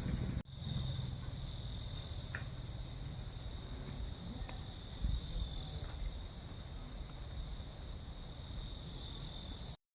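Insects chirring steadily in one continuous high-pitched drone, with a faint low rumble underneath and a few soft ticks. The sound breaks off briefly about half a second in and cuts off just before the end.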